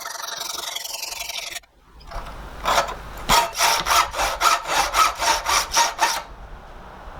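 Hand hacksaw cutting 25 mm x 3 mm flat bar for a hinge, in steady back-and-forth strokes about three a second. The strokes start a little over two seconds in, after a short lull, and stop about a second before the end.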